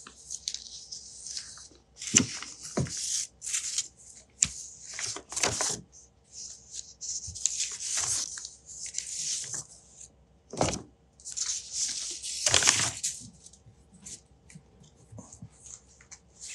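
Stiff, aged-looking facsimile paper sheets rustling and crackling in repeated bursts as they are handled and shuffled, with a few sharper taps as pages are laid down.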